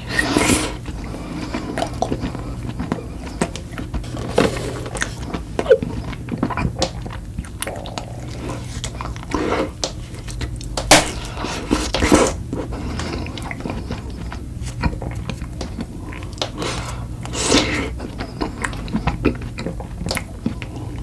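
Close-miked eating of desserts: irregular bites and chewing with sharp wet clicks and a few louder crunchy bites, over a faint steady low hum.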